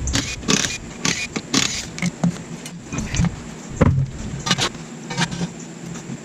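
Irregular clinks and knocks of metal tools and parts being handled, about a dozen sharp strikes spread over the few seconds.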